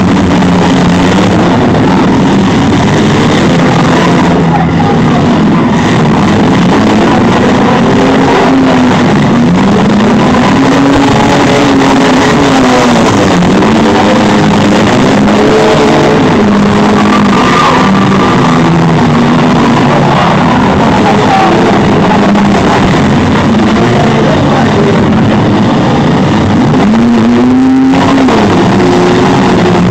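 Several demolition derby cars' engines revving hard together, their pitches climbing and falling over one another.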